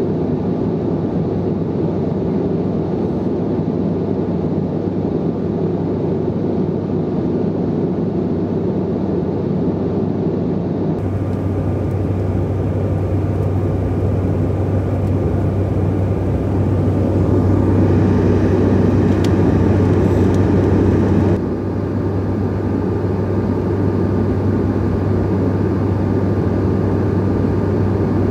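Steady cabin noise of a Bombardier CRJ-900 airliner in flight, heard inside the cabin: the drone of its rear-mounted General Electric CF34 turbofans and the rush of air over the fuselage, with a low hum beneath. The tone shifts abruptly twice, about a third and about three-quarters of the way through.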